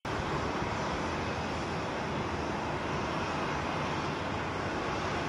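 Steady jet aircraft noise: an even rushing sound with no change in pitch or level, cutting in abruptly at the start.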